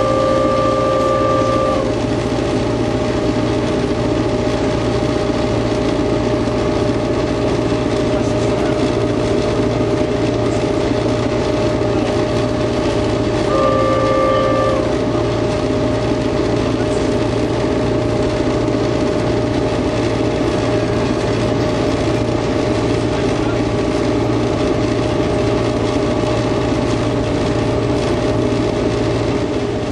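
Steady engine and running noise inside the cab of a T-class diesel-electric locomotive. A two-note horn sounds at the very start, and again for about a second around fourteen seconds in as a level crossing approaches.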